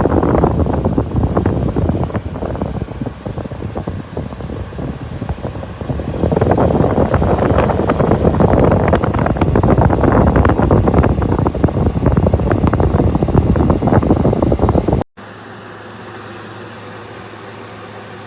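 Frigidaire FFRA051WAE 5,000 BTU window air conditioner running, with its fan air rushing and buffeting the microphone. About 15 seconds in, the sound cuts abruptly to a quieter, steady hum with a low tone.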